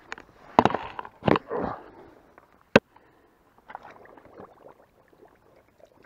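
Water splashing and knocking as a caught fish is handled in the shallows at the bank, with a few loud splashes in the first two seconds and one sharp click a little under three seconds in, followed by softer rustling and scraping in leaves and mud.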